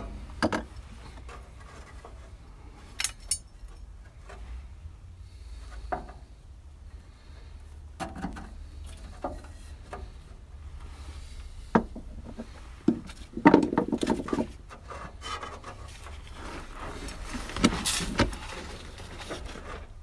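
Hand-work on the wiring and fittings of an electric fuel pump under a truck frame: scattered clicks, taps and scraping of tools and wire, with a busier stretch of rubbing and knocking about two-thirds through and again near the end. A steady low hum runs underneath.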